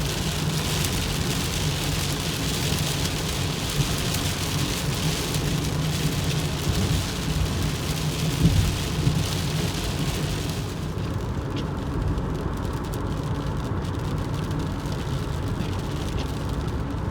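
Rain hitting a moving car, heard from inside the cabin over the steady drone of road and engine noise. About two-thirds of the way through, the rain hiss drops away, leaving the road drone.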